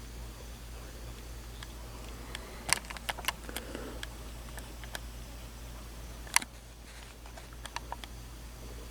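Scattered sharp clicks and taps over a steady low electrical hum: a quick cluster about three seconds in, a single louder click about six and a half seconds in, and a few small ones near the end.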